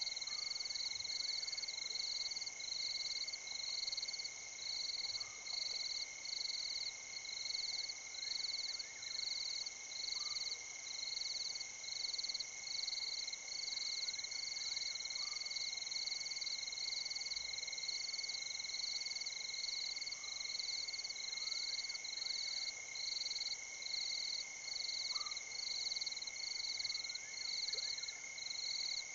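Night chorus of frogs and insects at a waterhole: a high trill pulsing about twice a second over a steady high-pitched whine, with a short call standing out about every five seconds.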